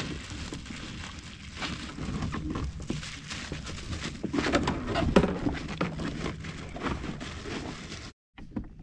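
Irregular knocks, clicks and rustling scrapes of gear being handled aboard a plastic fishing kayak. The sound drops out abruptly for a moment near the end.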